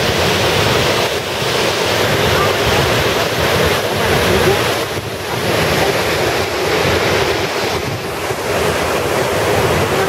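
Wide waterfall cascading over rock terraces into a pool, a steady rushing of water, with wind buffeting the microphone in gusts.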